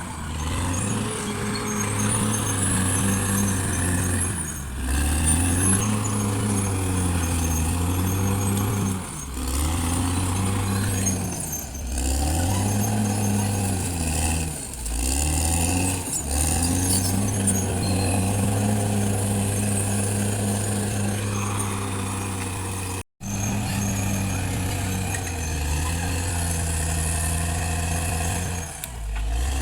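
Caterpillar D6R XL bulldozer's diesel engine working under heavy load, its pitch sagging and recovering every few seconds as the blade pushes and the machine shifts. A high squeal comes and goes over it.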